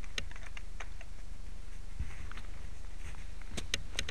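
A few faint sharp clicks and light steps in snow over a steady low rumble: a quick run of ticks in the first second, then a few more near the end.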